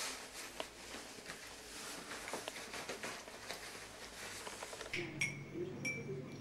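Soft rustling of clothing with small clicks as a jacket is put on. About five seconds in, a teaspoon stirs in a ceramic cup and clinks against its side three times, each clink ringing briefly.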